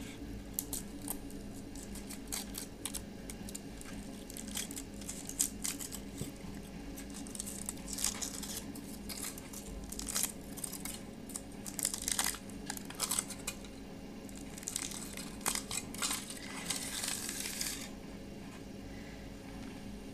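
Foil wrapper of a Kinder Surprise chocolate egg being peeled off by hand, with irregular crinkling and tearing that gets busier in the second half and stops a couple of seconds before the end.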